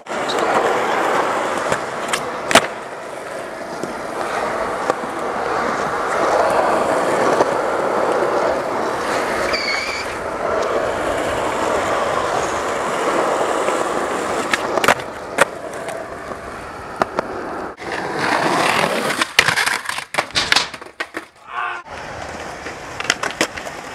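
Skateboard wheels rolling on rough pavement and concrete, a steady gritty rumble, with a few sharp clacks of the board's tail and trucks striking the ground: one near the start, one in the middle and several near the end.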